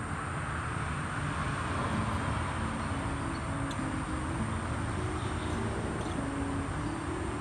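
Soft background music of short held notes stepping up and down, over a steady rushing noise with a low rumble.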